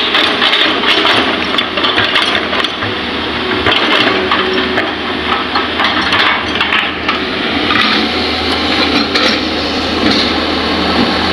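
Hitachi hydraulic excavator running as it loads a dump truck, with repeated knocks and clatter of soil clods and stones dropping into the truck's steel bed.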